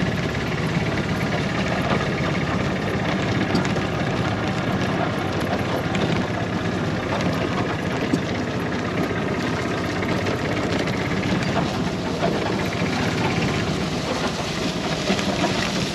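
Golf cart running steadily across a field, its motor noise mixed with light rattling and clicking.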